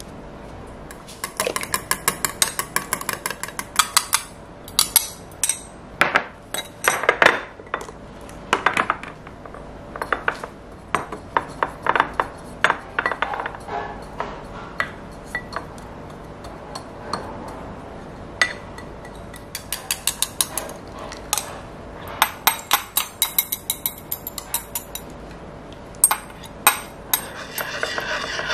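Eggs being beaten with chopsticks in a glass bowl: fast runs of rapid clicking against the glass, with scattered single clinks and taps of utensils and glassware in between.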